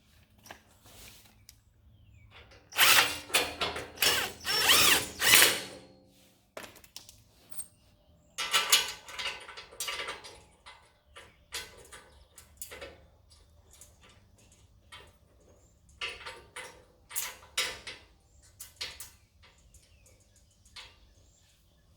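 Socket ratchet wrench clicking in several bursts as bolts are run in, the longest and loudest a few seconds in, with metal parts knocking between bursts.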